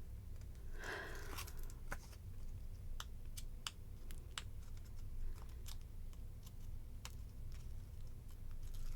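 Double-sided tape backing being picked at and peeled off paper pieces by hand: a brief paper rustle about a second in, then faint, irregular small ticks and clicks of fingernails on paper and tape.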